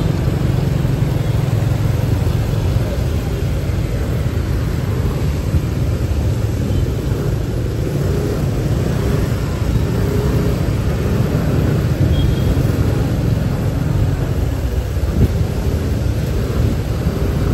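Steady low rumble of a motorbike ride through city traffic: engine and road noise running evenly without a break.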